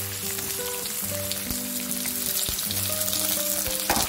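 Sliced coconut pieces frying in hot coconut oil in a wok, a steady sizzle, with a few knocks of a spatula against the pan as they are stirred.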